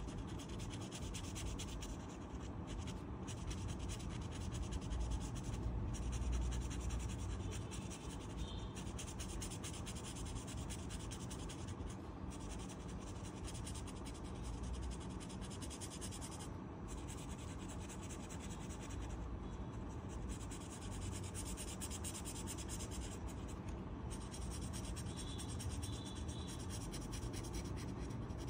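Oil pastel rubbing on paper in quick back-and-forth colouring strokes, a steady scratchy sound with brief pauses now and then.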